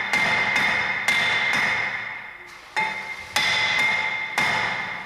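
A hammer striking a cross-drilled brake rotor on a 2007 Mercedes-Benz C230 to knock it loose from the hub: about six sharp blows, each leaving a metallic ring that fades, with a short pause near the middle.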